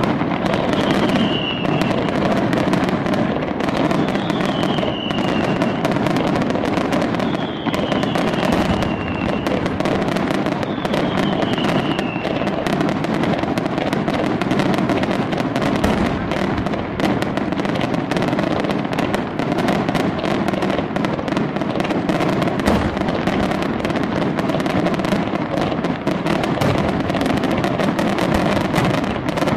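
A fireworks display: a dense, continuous crackle and popping of many shells and fountains firing at once. During the first twelve seconds a short falling whistle comes about every three seconds.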